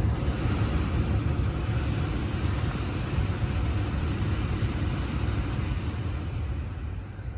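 Tesla's climate-control fan blowing at maximum speed inside the cabin: a loud, steady rushing noise with a heavy low rumble, easing slightly near the end.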